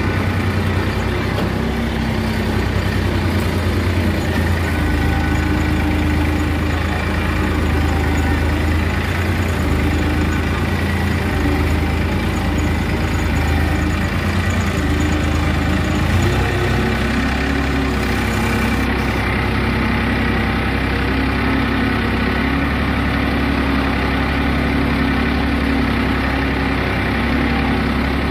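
Massey Ferguson 5245 tractor's diesel engine running steadily, heard close up from the driver's seat while the tractor is under way. The engine note shifts lower about sixteen seconds in and then runs on steadily.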